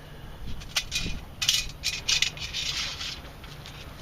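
Sand sifting and rattling in a detecting sand scoop being shaken, with a few small clicks of objects knocking inside; the hissy bursts come thickest about one and a half to two and a half seconds in.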